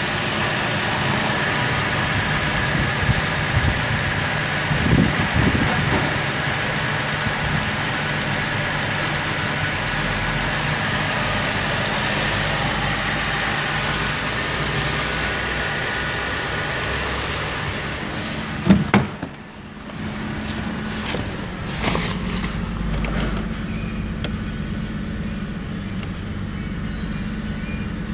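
Holden Commodore LY7 3.6-litre V6 idling steadily. About two-thirds of the way through there is a loud knock, with another a few seconds later, after which the idle is heard more faintly and duller.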